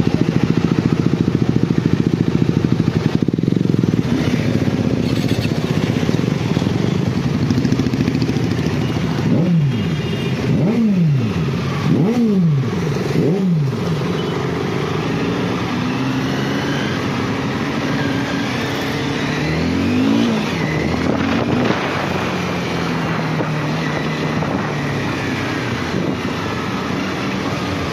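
Motorcycle engines idling, then four quick throttle blips a few seconds apart, rising and falling sharply. Later a motorcycle pulls away, its engine note rising as it accelerates, then runs steadily at speed.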